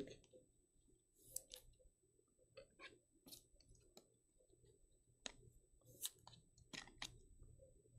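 Near silence with faint, scattered clicks and light rustles of trading cards being handled.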